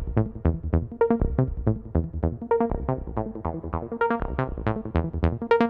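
Electronic background music: quick plucked synth notes, about four a second, over a steady low beat.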